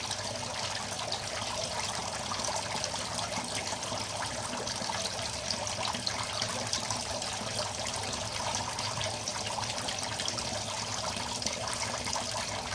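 Water trickling steadily back into a small koi pond from a top-mounted aquarium-style filter fed by the pond pump.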